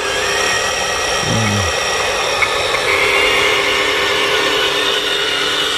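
Electric motors of a radio-controlled excavator whining steadily as it works, the pitch shifting about three seconds in, with a brief low falling tone a little over a second in.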